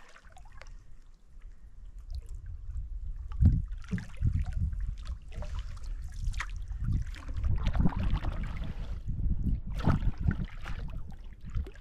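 Canoe being paddled on open water, with a low, gusty rumble of wind on the microphone.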